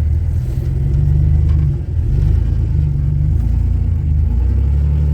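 Off-road vehicle's engine running with a low rumble, the throttle opening and easing off several times.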